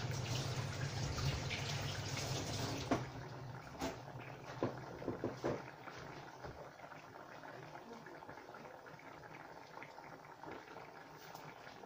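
Kitchen tap running into a sink, shut off about three seconds in, followed by a few short knocks and clinks.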